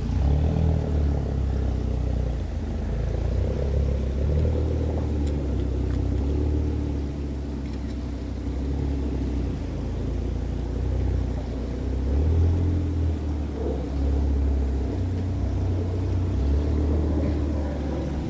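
Deep, continuous rumble of a large cruise ship's engines as it gets under way, swelling and easing, with a steady machinery hum over it.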